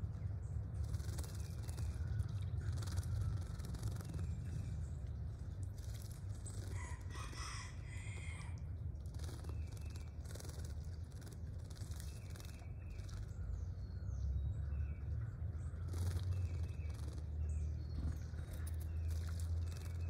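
Northern cardinals splashing as they bathe in a shallow puddle, with scattered short bird chirps over a steady low hum. About seven seconds in, a longer bird call with several pitches stands out for about a second and a half.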